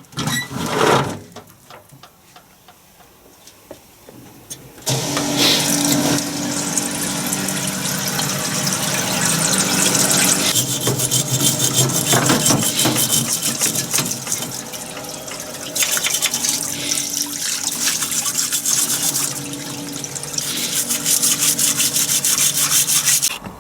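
A pump-driven washer starts about five seconds in and runs steadily, its motor humming under a hiss of water spraying onto a metal transfer box housing. The spray hiss grows and fades as the jet is moved, then stops just before the end. A single knock comes just under a second in.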